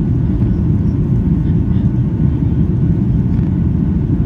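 Steady low rumble of airliner engines and airflow, heard inside the cabin during the climb after take-off.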